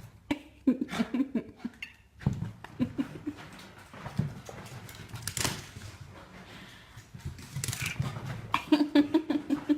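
A dog making runs of short, quick whining sounds, three bursts of them, with scattered knocks and rustling in between.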